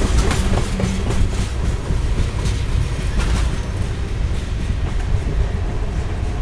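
Freight train's coal hopper cars rolling past, steel wheels clacking over the rails for the first few seconds under a steady low rumble; the clacks thin out about halfway through as the rear of the train moves away.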